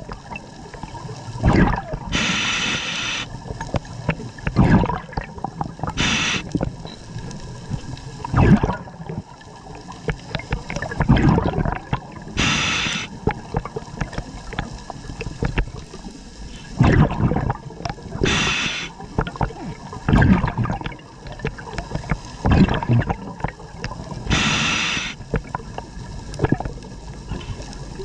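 Scuba diver breathing underwater through a regulator: a short hiss about every six seconds, with gurgling bursts of exhaled bubbles in between.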